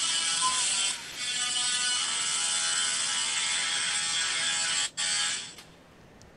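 Tesla coil music: a held, overtone-rich electric note with a short break about a second in, cutting off about five seconds in and fading out soon after.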